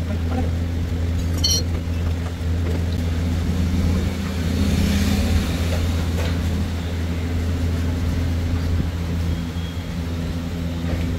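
A vehicle engine running steadily, a constant low hum that holds the same pitch throughout.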